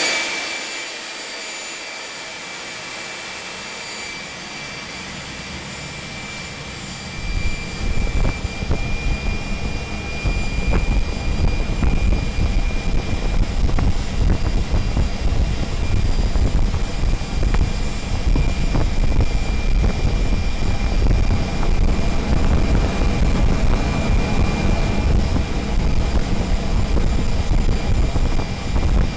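A homemade gas turbine burner can is running on test, giving a steady rushing noise with a high whine over it. About seven seconds in, a loud low combustion roar comes in and holds steady.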